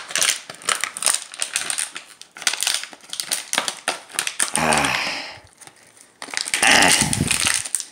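Thin plastic water bottle crackling and crunching as a dog bites and tugs on it, a rapid run of crinkly clicks. Two short vocal sounds break in during the second half, the later one the loudest.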